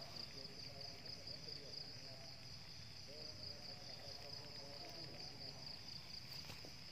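Faint, steady high-pitched insect chirring, continuous without a break.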